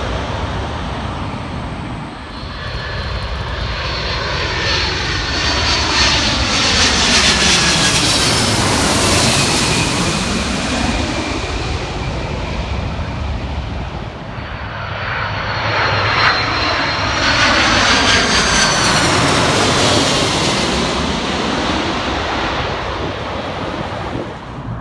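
Two large jet airliners passing low overhead on final approach, one after the other. Each is a rising rumble and whine of turbofan engines that peaks as it goes over, then falls in pitch as it moves away.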